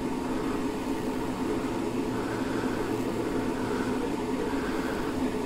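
Steady mechanical hum of a running machine, with a low drone that comes in about two seconds in and fades before the end.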